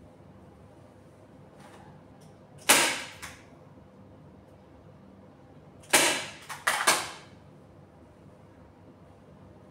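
Hand staple gun snapping as it fires staples into a divan bed base: one sharp snap, then three more in quick succession about three seconds later.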